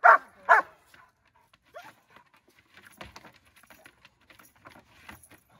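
Young German Shepherd barking twice in quick succession, then faint scuffling and light taps.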